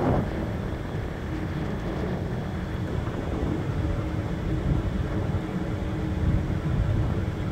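A steady low rumble, with a faint hum above it and a short knock right at the start.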